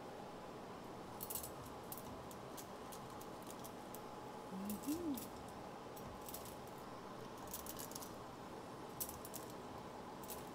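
Metal ladle stirring noodles in a pot of broth, making light clicks and scrapes against the pot in short clusters every second or two. A brief low rising-and-falling voice-like sound about halfway through.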